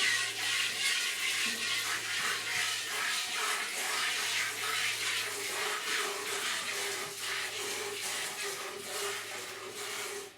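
A goat being hand-milked, milk squirting in quick repeated streams into a metal milk bucket.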